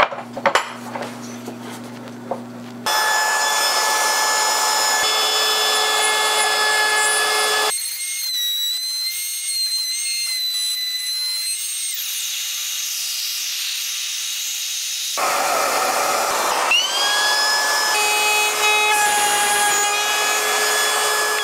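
Trim router with a 1/8-inch bit running with a steady high whine as it cuts narrow slots in the hardwood apron; the pitch wavers as the bit bites, and near the end the router spins up again with a rising whine. Before it starts there are a few knocks over a low hum.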